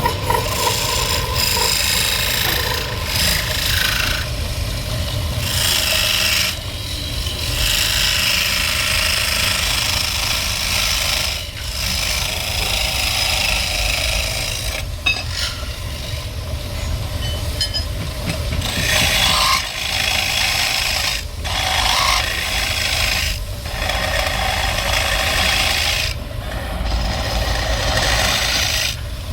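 A tool scraping and cutting wood while a bowl is shaped, in passes of a few seconds each with short breaks, over a steady low hum.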